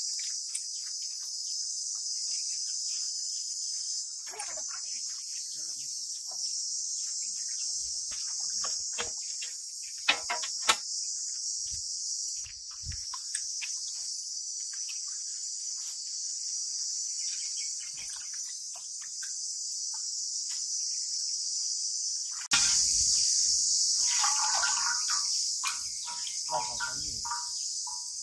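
A steady, high-pitched insect chorus of shrill chirring. Two sharp knocks sound about ten seconds in, with light clicks scattered through, and bird chirps come in over the last few seconds.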